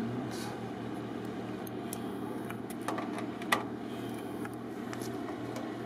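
A steady low mechanical hum, with a few small sharp clicks about three seconds in as a hand works at the generator's air filter housing.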